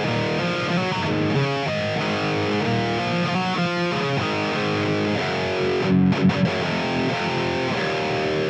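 High-gain distorted electric guitar riffing: an ESP LTD MH-1000 tuned to E flat, played through the STL Tone Hub plugin's stock 5153 high-gain amp preset. A few louder accented chords come about six seconds in, and the playing cuts off at the end.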